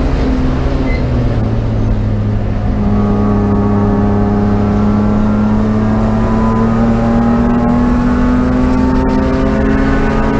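BMW race car's engine accelerating under power. Its pitch climbs slowly and steadily from about three seconds in.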